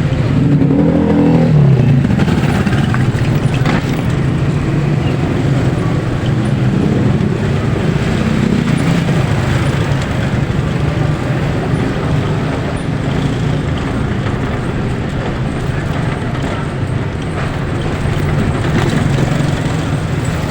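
Steady engine and road noise of a vehicle driving along a road.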